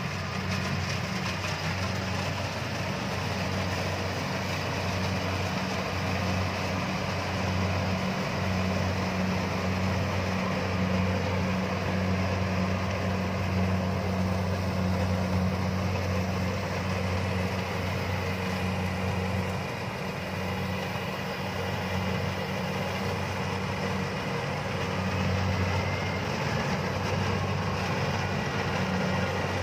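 Kubota DC-70 combine harvester's diesel engine and threshing machinery running steadily while it cuts and threshes rice, a continuous low drone with a slight dip about two-thirds of the way through.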